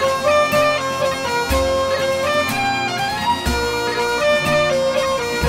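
Bagpipe music: a pipe tune with quick grace-note ornaments over a steady drone, with a low thud about every two seconds.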